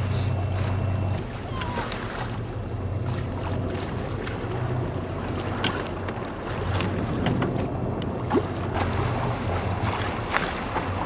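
Low, steady hum of a boat's engine with wind buffeting the microphone and the wash of the sea, broken by a few short clicks.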